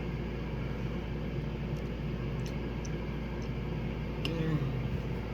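Steady low background hum with a few faint clicks and a brief faint murmur about four seconds in.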